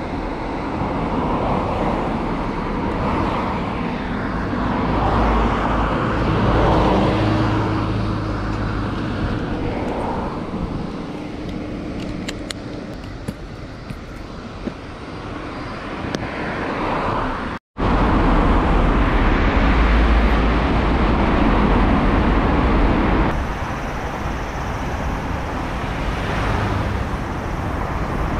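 Road traffic going by, with a steady low rumble; the sound cuts out completely for a moment about two-thirds of the way through.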